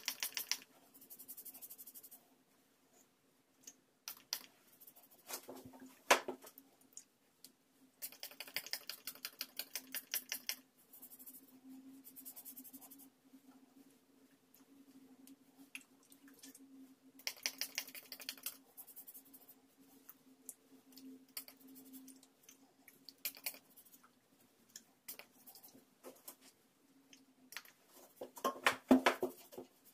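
Hand-held pump spray bottle squirted in quick runs of several pumps, each run a rapid string of clicks and misty hiss, with rustling of hands in hair between the runs. A louder rustle comes near the end, and a low steady hum sits under it all.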